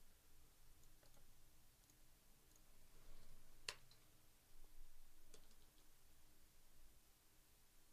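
Near silence with a few faint, sharp clicks, the clearest about halfway through and another a couple of seconds later.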